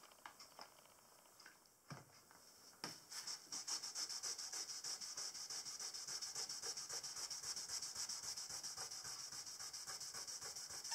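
A cloth scrubbed quickly back and forth over a solid pine panel, wiping away sticky label residue loosened with Goo Gone. It is a rapid, even rubbing that starts about three seconds in, after a couple of faint knocks.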